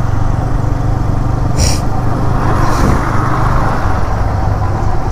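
Yamaha R15 motorcycle's single-cylinder engine running steadily at low road speed, with road and wind noise. A short hiss cuts in about a second and a half in.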